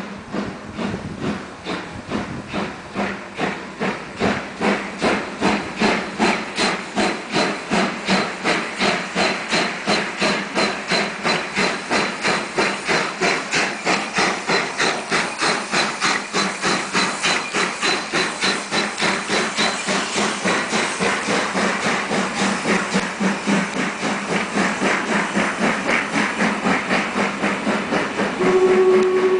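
BR 01 202 two-cylinder steam locomotive pulling away with a train, its exhaust chuffs coming steadily faster until they reach about four a second, over a hiss of steam. Its steam whistle starts to sound near the end.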